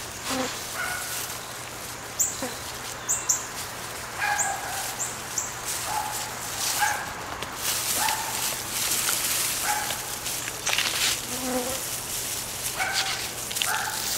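Hands digging and rummaging through the potting soil of a potato container, with scattered scratchy rustles, and short chirps scattered throughout, the sharpest two a couple of seconds in.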